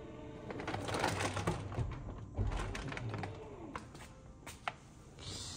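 Irregular clicks, knocks and rustling as a folded baby stroller and bags are shoved and repositioned in a car's boot, with one sharper click near the end.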